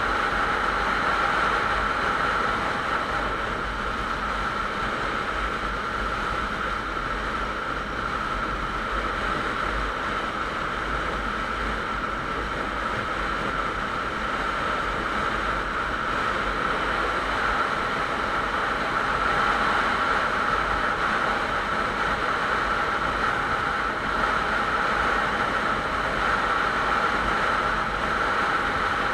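Motorcycle cruising steadily at highway speed: wind rushing over the microphone, with the engine's steady drone underneath.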